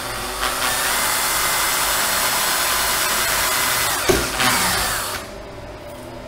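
Cordless drill with a 2.5 mm bit running at speed, a steady motor whine, as it drills a pilot hole into plastic. About four seconds in there is a knock and the drill slows and winds down, stopping about a second later.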